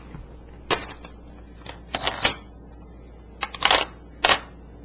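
A handful of short, irregular clacks and rattles, like hard plastic being knocked or handled, with the loudest cluster about three and a half seconds in.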